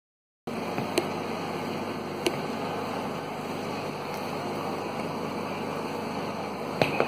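Steady hiss of background noise after a half-second of silence at the start, with a sharp click about a second in, another a little after two seconds, and two more near the end.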